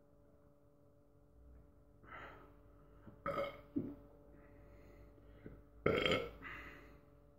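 A man burping several times in short bursts between fast gulps of drink; the loudest burp comes about six seconds in.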